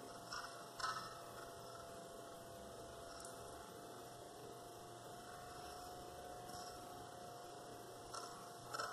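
Faint steady hiss with a thin steady hum tone from a camcorder's own audio in a quiet room, broken by a few brief soft ticks about a second in, around three and six seconds, and near the end.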